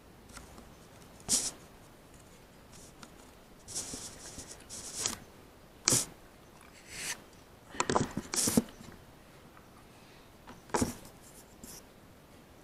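Close handling noise: irregular rubbing scrapes and sharp clicks, with a tight cluster of clicks about eight seconds in.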